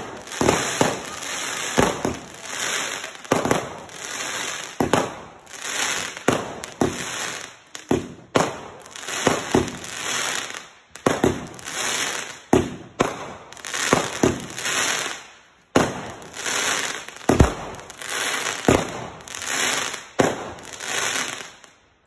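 Aerial fireworks bursting in quick succession, a sharp bang roughly every half second to second, each followed by crackle and hiss. The bangs stop just before the end.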